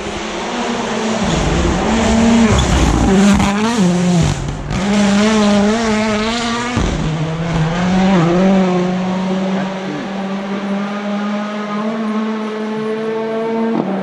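Rally car passing at speed: its engine revs up and down through the gears, loudest a few seconds in, drops off sharply about seven seconds in, then holds a steadier note as it goes away.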